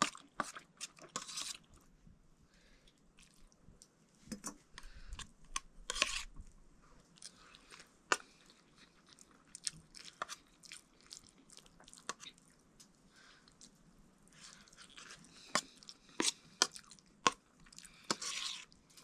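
Chewing and mouth sounds of someone eating a meal of rice, lentil soup and mustard greens: irregular short clicks and wet smacks with brief pauses.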